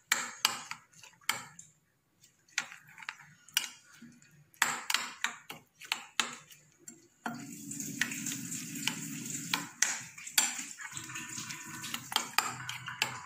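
Metal spoon beating raw eggs with chopped vegetables and spices in a cut-glass bowl, clicking and scraping against the glass in quick irregular strokes. A steady low hum sets in about seven seconds in, under the clinks.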